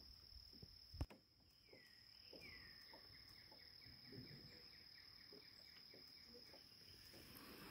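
Near silence: faint outdoor ambience with a steady high tone, a single click about a second in, and a faint call from about two seconds in that slides down and then pulses evenly.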